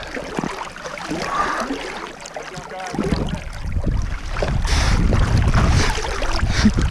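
River water sloshing and splashing around legs as people wade slowly across a current over a stony bottom, with a low rumble, likely wind on the camera's microphone, coming up about three seconds in.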